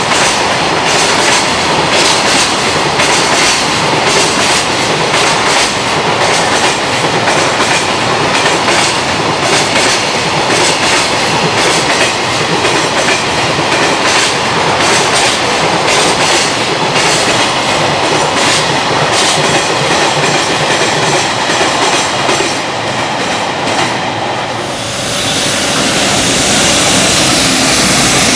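Freight train of container wagons passing at speed, the wheels clicking rapidly and continuously over the rail joints. About 25 seconds in, the clatter stops and gives way to the steadier rushing noise of another train.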